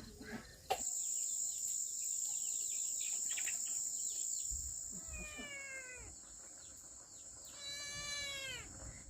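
A cat meowing twice in the second half, drawn-out meows that fall in pitch at the end, over a steady high-pitched whine that sets in with a click about a second in.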